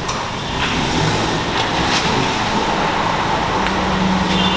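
Steady road traffic noise, with a low hum coming in during the second half.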